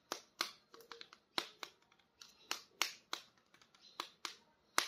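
Sharp, irregular plastic clicks and taps, two or three a second, from a plastic action figure being handled and posed.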